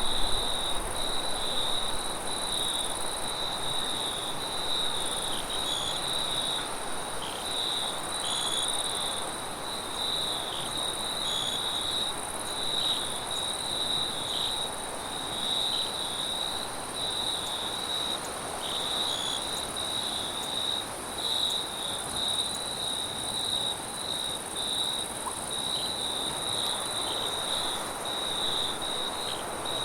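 Crickets chirping in a steady, high-pitched, slightly pulsing chorus, with a fainter, even higher insect hiss above it, over a soft, steady rush of wind.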